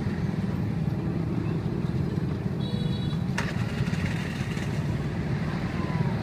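Steady low rumble of vehicle engines, with a single sharp click about three and a half seconds in.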